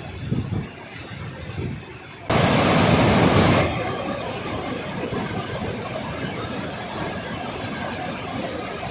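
Steady rushing noise of a waterfall's falling water, with faint voices in the first two seconds. A little over two seconds in, a much louder rush of water noise comes in suddenly and lasts about a second before settling back to the steady roar.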